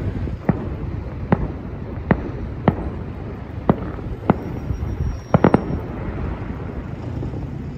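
Fireworks salute going off: nine sharp bangs at irregular intervals, including a quick run of three about five and a half seconds in, over a steady low background rumble.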